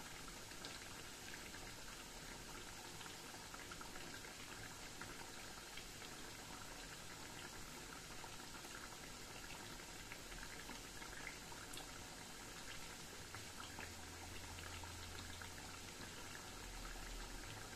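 Pestiño dough pieces frying in hot oil in a black iron pan on a low gas flame: a faint, steady sizzle with scattered small crackles.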